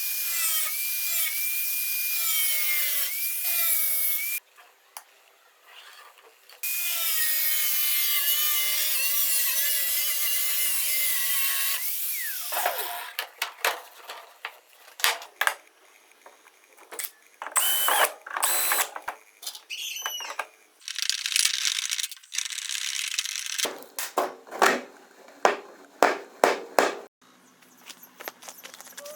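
Electric drill running under load in two long stretches, its whine wavering in pitch, followed by a string of short clicks and knocks.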